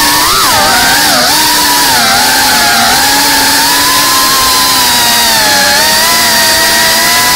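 FPV quadcopter's brushless motors and propellers whining, heard close from the onboard camera. The pitch swoops up and down twice in the first second or so as the throttle changes, then holds fairly steady with slow rises and dips.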